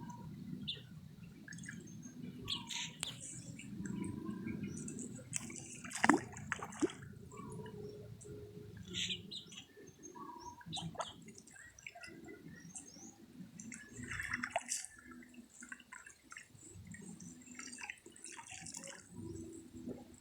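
River water splashing and dripping in irregular bursts over a low steady rush of flowing water, the loudest splash about six seconds in, with birds chirping now and then.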